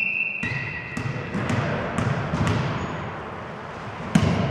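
Volleyball being struck and bouncing in an echoing sports hall: several sharp thuds of the ball, the loudest about four seconds in, over a low murmur of players' voices and footsteps.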